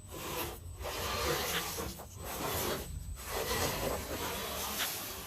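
Scale RC crawler working over a dirt trail: tyres and chassis scraping and crunching over dirt and rock in long bursts, with short breaks between them.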